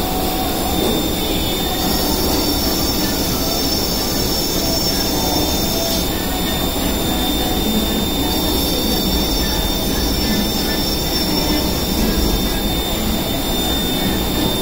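CNC lathe running, its spindle spinning a brass workpiece under coolant spray: a steady machine noise with a constant high whine. A second, higher whine comes in about two seconds in and again about eight seconds in, each time lasting around four seconds.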